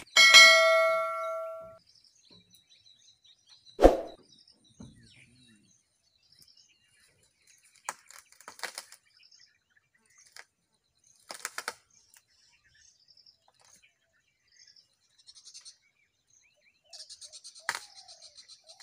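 A bell-like ding from an on-screen subscribe-button animation at the start, dying away over about a second and a half, then a single loud thud about four seconds in. After that come sparse cracks and snaps of brush as a Sri Lankan elephant tears at branches with its trunk and foot, with birds chirping faintly.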